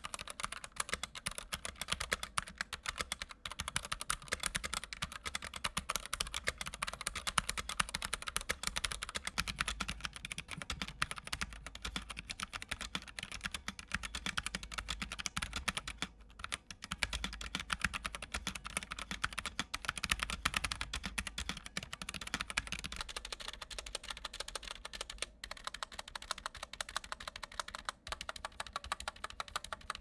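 Continuous fast typing on a Drop ENTR tenkeyless mechanical keyboard with double-shot PBT keycaps, first with Gateron Yellow linear switches and then, after a brief pause a little past halfway, with Halo True tactile switches. The keystrokes are higher-pitched with some case ping, which the reviewer puts down to little or no dampening inside the case.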